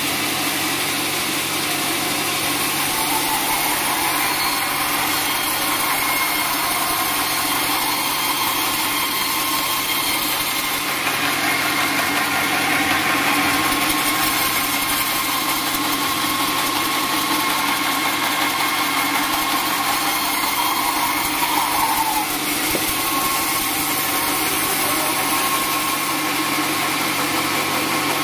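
Band sawmill running steadily, its engine and blade giving a continuous even machine noise while sawing a teak log.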